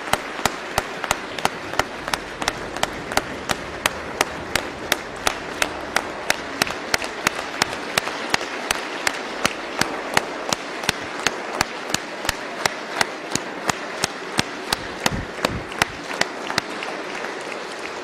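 A large audience applauding, with loud, evenly spaced claps at about three a second standing out above the crowd's clapping.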